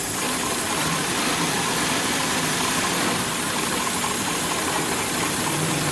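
Hightex 204-370-DP post-bed double-needle triple-feed industrial sewing machine running steadily, stitching heavy upholstery material.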